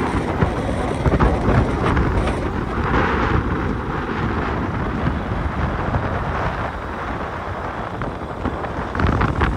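Wind buffeting the microphone of a camera on a moving motorcycle: a steady, loud, low rumble of rushing air, with the bike's running noise mixed in.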